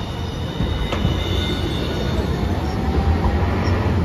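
Hiroshima Electric Railway street trams rolling on curved rail. A thin, high wheel squeal fades out within the first second as a 1000-series Green Mover LEX pulls away. A sharp click comes about a second in, then a low rumble of wheels on track grows louder toward the end as a 3800-series tram comes up.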